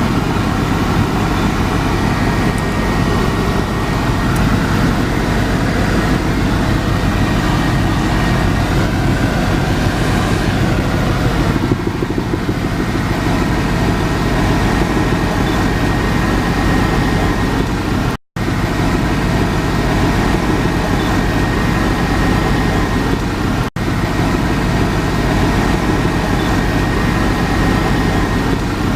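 Helicopter noise heard from inside the cabin: a loud, steady drone of rotor and turbine engine with a thin, steady high whine above it. The sound drops out for a split second twice, about two-thirds of the way through and again a few seconds later.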